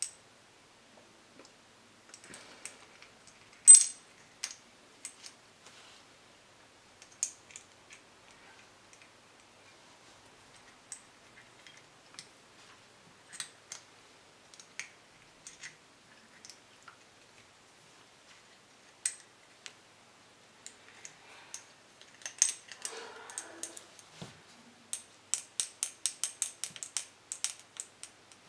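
Small metal parts and hand tools being handled, giving scattered light clicks and clinks, with one louder clink about four seconds in and a quick even run of clicks, about five a second, near the end.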